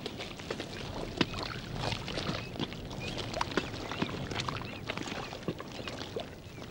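Wet mud squelching and slapping in many irregular short sounds as people crawl and wallow through thick mud.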